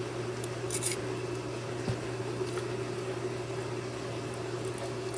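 Steady low electrical hum, with a few faint clicks as a small metal mounting plate and servo assembly are handled, about a second in and again around two seconds.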